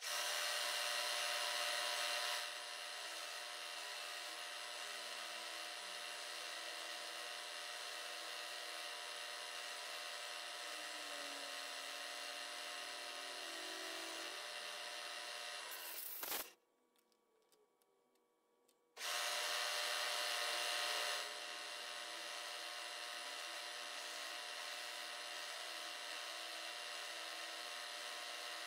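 Milling machine spindle running with a half-inch end mill cutting the face of a metal drive-center blank, a steady machine whir with a constant hum of tones. It is louder for the first couple of seconds. Past the middle it ends in a sharp click and drops out for about two and a half seconds, then comes back loud for about two seconds before settling to the steady level.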